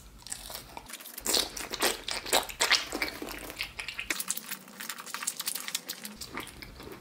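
Close-miked wet mouth sounds of a sauce-covered pickle being sucked on, bitten and chewed: irregular smacks and wet clicks.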